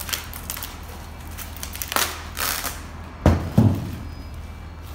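Workshop noise: a steady low hum under scattered clicks, a short rush of noise about two seconds in, and two heavy thumps about a third of a second apart a little past three seconds in.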